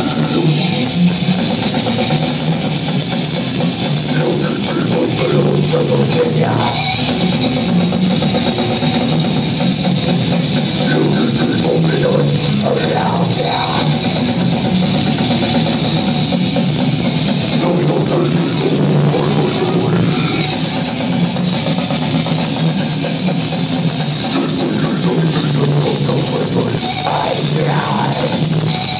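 A live metal band plays at full volume, heard from within the crowd: distorted electric guitar over drums, dense and unbroken throughout.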